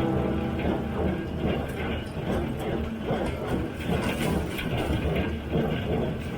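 Tractor engine and John Deere 348 square baler running in the field: a steady mechanical drone with a regular beat about twice a second.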